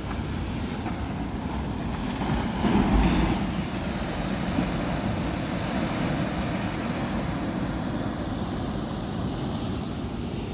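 Wind buffeting the microphone: a steady low rumble, with a stronger gust about three seconds in.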